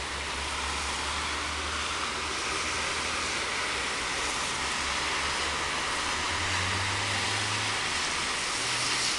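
Steady road traffic noise with a low engine hum that rises a little in pitch about two-thirds of the way through.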